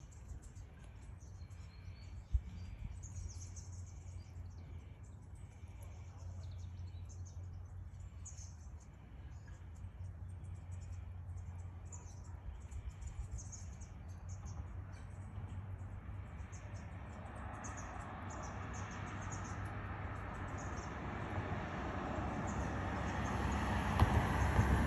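Outdoor garden ambience with birds chirping: repeated short, high calls through most of the clip. Over the second half a broad rumbling, rushing noise builds steadily louder.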